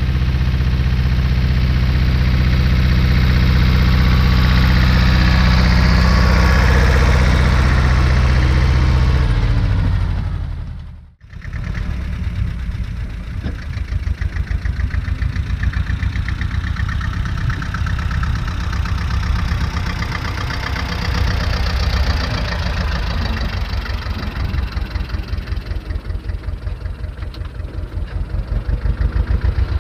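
Tractor engine running as it pulls a seed drill across the field. The sound cuts out briefly about a third of the way in, then returns as an engine with a fast, even pulse that grows louder as the tractor comes close near the end.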